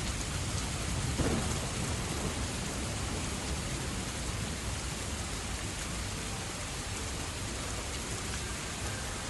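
Steady rain falling, with a low rumble of thunder beneath it.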